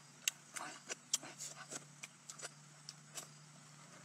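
Close eating sounds: irregular wet clicks and smacks of chewing, and of grilled rat meat being torn apart by hand, several a second, over a faint steady hum.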